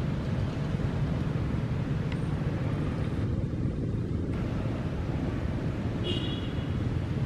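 Steady low rumble of wind on the microphone, with a short high squeak about six seconds in.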